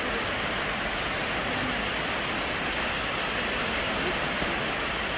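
Steady wash of small surf waves breaking and running up a sandy beach.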